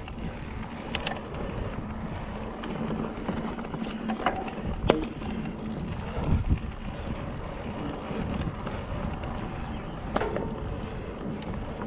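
Mountain bike rolling over rough trail: steady tyre noise and rattle, broken by several sharp clacks and knocks as the bike hits rocks.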